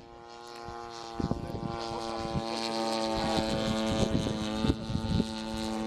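Radio-controlled model airplane's engine running at a steady pitch and getting louder, with a few brief crackles over it.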